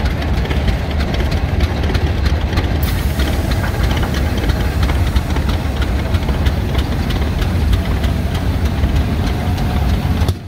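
Rumely OilPull tractor engine running with a steady, rapid exhaust beat and a heavy low rumble as the tractor drives slowly past; the sound drops off suddenly near the end.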